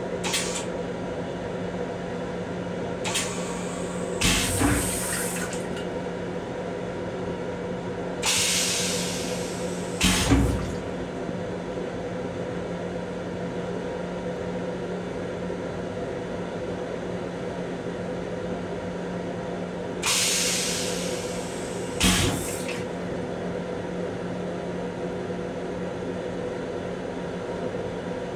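Railcar toilet flushing: three hissing rushes of water of a second or two each, each with a sharp thump, plus a couple of brief hisses, over a steady hum.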